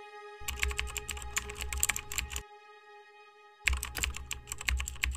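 Two spells of rapid clicking like typing on a computer keyboard, each about two seconds long with a pause of a little over a second between them. Under them a held chord of music fades out near the end.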